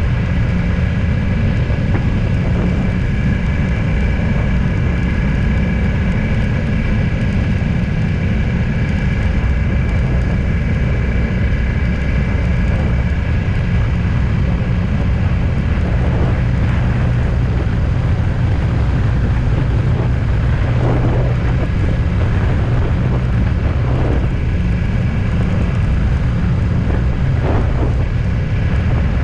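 Steady engine and road noise of a vehicle on the move, even and unbroken, with a few faint brief sounds in the second half.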